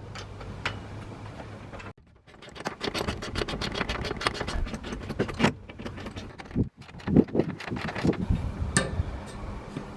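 Rattling and clattering with sharp knocks as shed parts are handled and fitted during the ridge-beam stage, busiest from about two seconds in until near the end, over a low steady hum.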